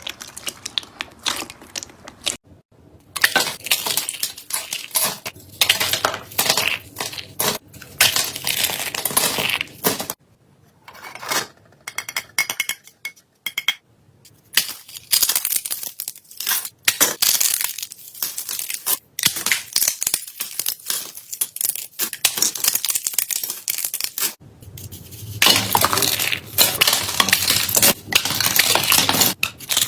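Slime being pressed and squeezed by hand, with dense crackling and crunching, broken by a few quieter pauses.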